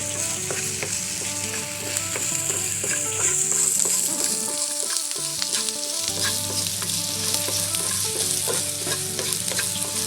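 Chopped onions and curry leaves sizzling as they fry in coconut oil in a pan. A spatula stirs and scrapes through them, making many small clicks over the steady hiss.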